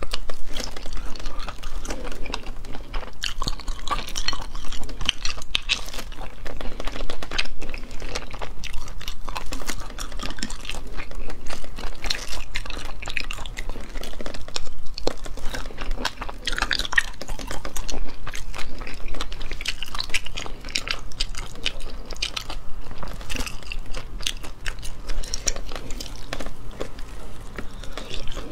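Close-miked chewing of sea snail meat picked from the shell: wet mouth sounds full of small sharp clicks and crunches, going on without a break.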